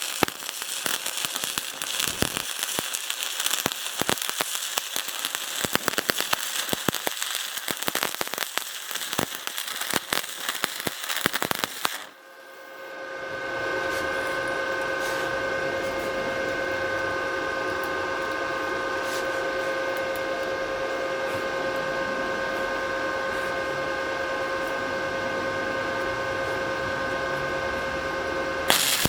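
Electric arc welding crackling and sputtering steadily. About twelve seconds in it stops abruptly and a steady hum with a few fixed high tones takes over, and the crackle returns near the end.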